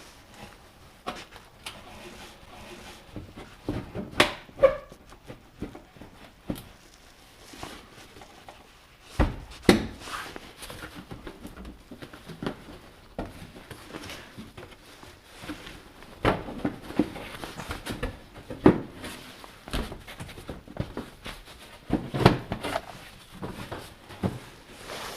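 Hands working on the plastic belt-housing and snorkel-boot parts of an ATV: irregular knocks, clicks and rustling as parts are handled and fitted, with a few sharper clunks scattered through.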